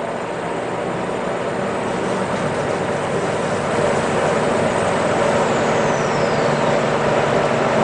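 CNC lathe running with the spindle turning the bar stock while a parting tool cuts into it. A steady machining noise grows louder over the first few seconds. A faint whistle falls in pitch about five seconds in.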